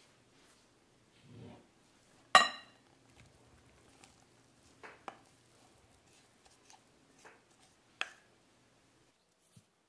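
Glass mixing bowls clinking: one loud, ringing clink a couple of seconds in, then a few lighter knocks and taps as flaked canned tuna is tipped from one glass bowl into another.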